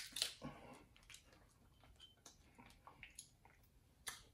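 Snow crab leg shell cracking as the meat is pulled out: a sharp crack at the start, then faint small clicks and soft squishy handling.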